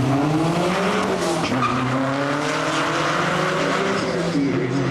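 Race car engine accelerating hard, its pitch climbing through the gears.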